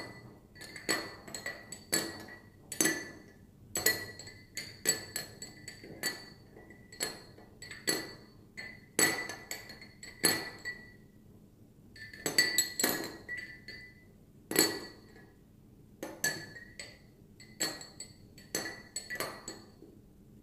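Metal USB flash drive on a carabiner clinking against the inside of a water-filled drinking glass as it is swung around, many irregular knocks, often in quick clusters, each leaving the glass ringing briefly.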